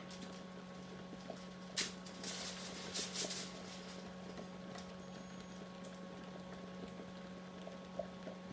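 A sharp click, then a few brief rustles from handling the chicken and roasting pan, over a steady low hum.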